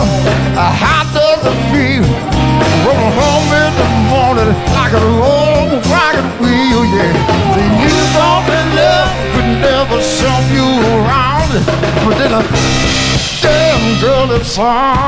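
Live band music: a man singing lead with vibrato over keyboard and drums.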